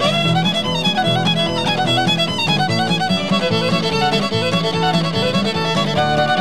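Background music: a fiddle playing a fast tune with quick runs of notes over a steady accompaniment.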